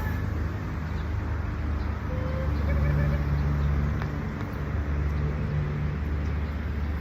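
Low, steady rumble of a motor vehicle's engine, swelling for a few seconds in the middle.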